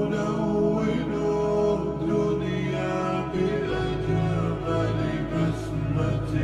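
Arabic nasheed playing: layered voices over a sustained low drone that steps to a new pitch about halfway through.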